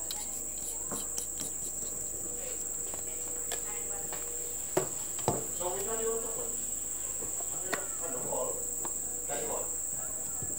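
Steady, high-pitched chorus of insects shrilling, with a few sharp clicks about halfway through as an LED bulb and its cable are handled and fitted to a small battery pack.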